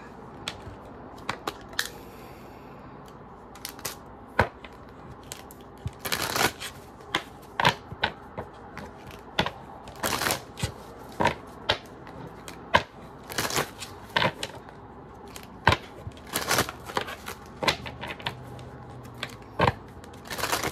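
A tarot deck being shuffled by hand: irregular snaps and short runs of cards flicking against each other, with pauses between.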